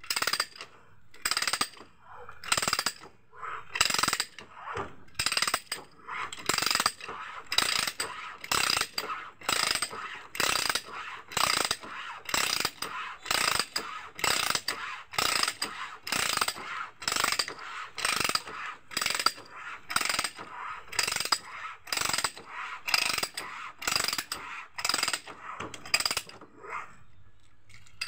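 Hand ratchet pipe-threading die cutting a thread into a 2-inch uPVC pipe: the handle is worked in short, even strokes, each one a rasping ratchet-and-cutting sound, roughly three every two seconds. The strokes stop about a second before the end.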